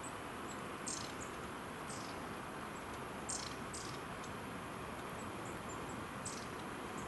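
Steady outdoor background hiss with about five brief, faint high-pitched chirp-like sounds scattered through it.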